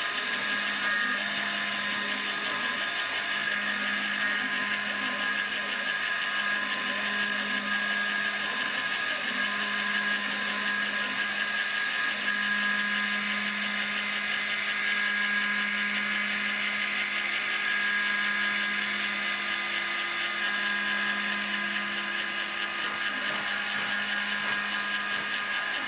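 CNC-converted Proxxon MF70 mini mill isolation-milling a circuit board: the spindle runs with a steady high whine as the engraving bit cuts the copper. Fainter tones come and go under it as the axis motors drive the table.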